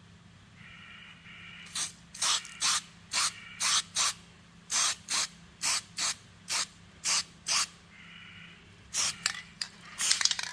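Paint being sprayed onto a motorcycle side fairing panel in short hissing bursts, a few a second, starting about two seconds in, with a brief pause before a last quick run of bursts.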